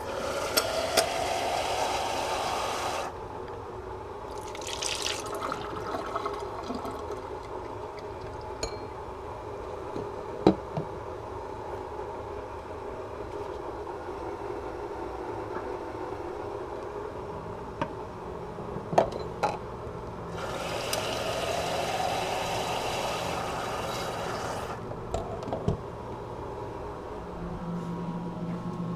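Water pouring into a pot, its pitch rising as the pot fills, twice: once at the start and again about two-thirds of the way through. A few sharp knocks and clinks come between the two fills.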